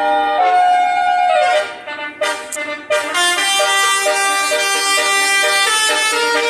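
Basuri musical air horn on a vehicle playing a tune in held notes that step up and down. It breaks off with a downward slide about a second and a half in, and starts playing again at about three seconds.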